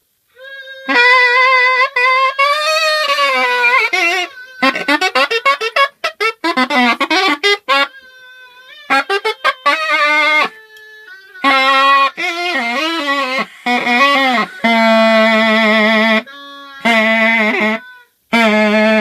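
A wind instrument playing loud, reedy notes that bend and waver in pitch, in short phrases broken by brief pauses, with a run of fast, stuttering notes partway through.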